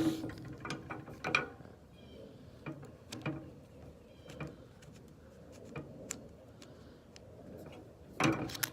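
A heavy-duty bike lock being handled and worked: scattered mechanical clicks and knocks, with a louder clatter near the end.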